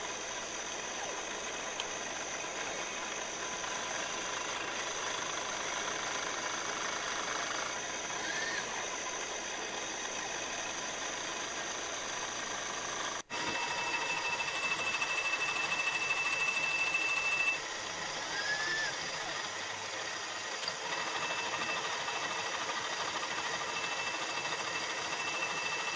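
Milling machine spindle turning a fly cutter through an aluminium workpiece: a steady machining hum. After a sudden break just past halfway, a high steady whine comes in, drops out briefly, then returns.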